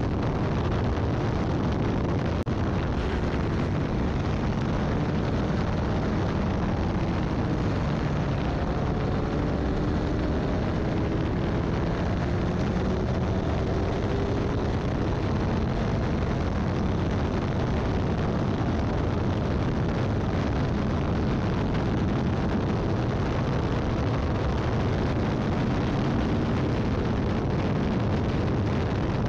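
Formula Ford race car running at speed: a steady, dense rumbling noise, with a fainter engine note rising and falling underneath.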